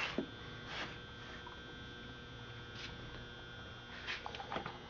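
Quiet room tone with a faint steady hum and a few soft, brief noises.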